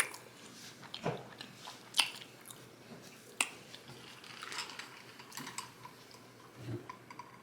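Close-up chewing of a mouthful of Five Guys French fries, with a few sharp wet mouth clicks and smacks about a second apart and softer chewing between them.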